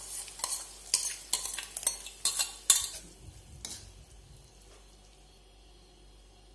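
Steel spoon scraping and clinking against a steel bowl and kadai as spinach purée is emptied into a pan of frying onions and tomatoes, over a faint sizzle. The scraping stops about four seconds in, leaving only the faint sizzle.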